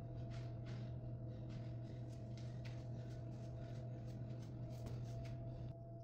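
Steady low room hum, with soft, irregular scuffing and swishing of a person moving on a gym floor during exercise.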